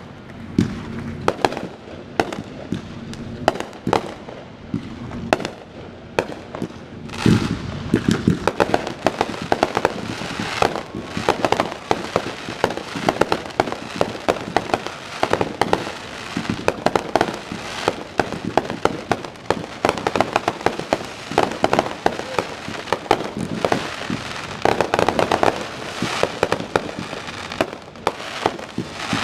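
Aerial fireworks display: shells bursting in quick succession, a dense, continuous run of bangs and crackles with a few heavier booms, one about seven seconds in.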